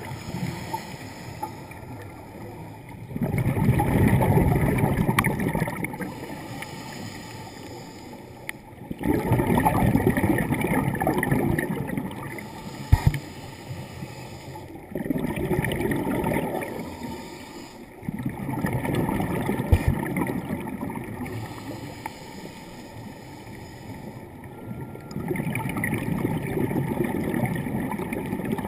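Scuba diver's exhaled air bubbling out of the regulator underwater, in slow bursts of about three seconds every five or six seconds, with a quieter hiss in between and a couple of short knocks.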